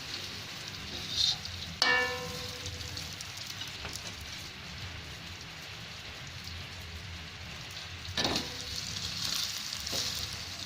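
Rice and spice paste frying in hot oil in a pan, with a steady sizzle. About two seconds in, a loud metal clang rings briefly, like a utensil striking the pan, and another knock comes about eight seconds in.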